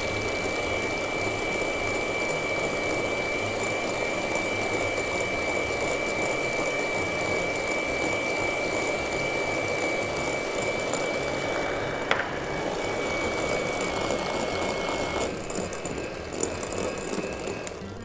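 Corded electric hand mixer running steadily, its beaters whipping egg whites into a foam as sugar is added, with a steady high whine over the motor. A click about twelve seconds in, after which the whine sits slightly lower and stops a few seconds later; the sound drops off near the end.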